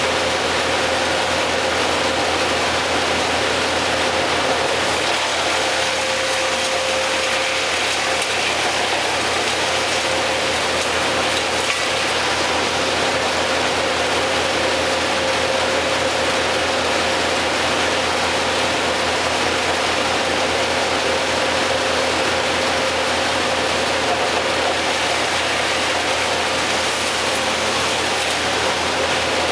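Steady mechanical drone of an engine running at a constant speed, with a steady hum. It stays unchanged throughout, with no revving or cutting.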